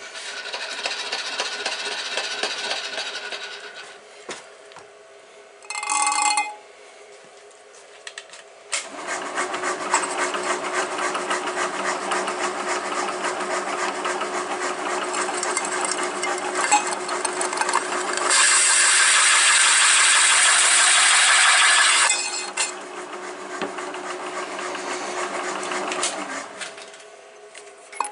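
A carbide-tipped hole saw, about 3/4 inch, cutting through 7075 aluminium sheet under a milling machine spindle: a steady grinding cut with the spindle's hum underneath. The cut gets harsher and louder for about four seconds in the middle, then stops. A short pitched squeal sounds earlier, about six seconds in.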